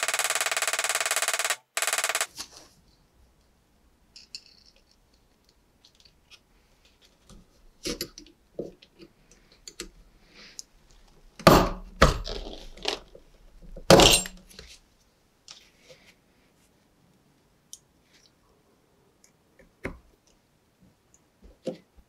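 Rapid ball-peen hammer taps peening a pin into a brass knife liner, which stop after about two seconds. Compound-action tin snips then cut brass pin rod, giving loud sharp snaps twice around the middle and once a few seconds later. Small clicks and taps of brass parts being handled come in between.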